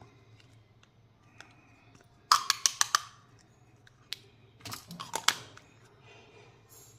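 Kinder Joy egg's plastic packaging being handled and opened: two bursts of sharp crackling and clicking, about two seconds in and again near five seconds, with a few single clicks between.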